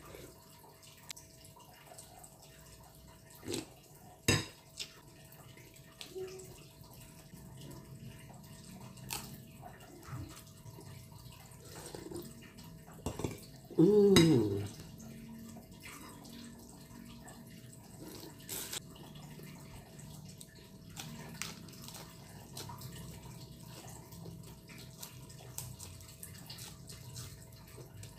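Close-up eating sounds of someone eating tom yum with fish head and prawn: wet chewing, sucking and sipping of broth, with a few sharp clicks and knocks. About halfway through comes a short, loud mouth sound that falls in pitch.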